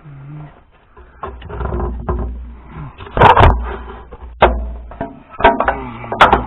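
A series of sharp metallic knocks and clunks over a low rumble, from hydraulic hoses and couplers being handled and fitted on a tractor.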